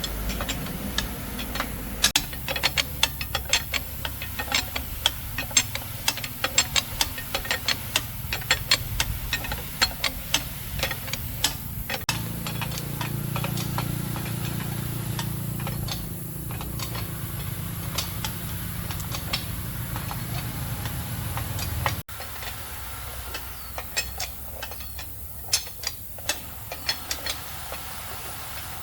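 Rapid, irregular metallic clicks and taps, several a second, typical of hand tools working on metal parts. In the middle stretch they give way to a steady low hum, starting and stopping abruptly.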